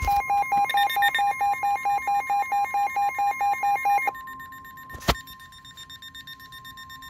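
NOAA Weather Radio warning alarm: a steady tone of about 1 kHz. For the first four seconds a loud, rapid electronic beeping of about six or seven beeps a second sounds over it, then gives way to fainter, higher pulsing. A sharp click about five seconds in.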